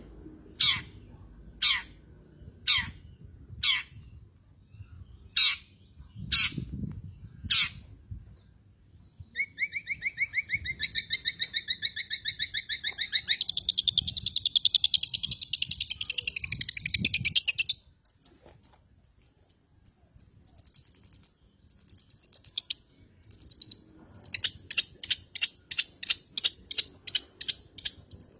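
Long-tailed shrike (cendet) song: a series of about eight falling calls roughly one a second, then a long spell of fast, high twittering chatter, scattered single high notes, and a quick run of sharp notes near the end.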